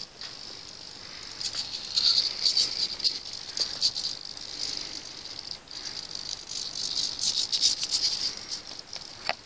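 Hobby servos on a small RC helicopter buzzing with a high-pitched rattling chatter that grows louder and softer in spells. A sharp click at the start and another near the end.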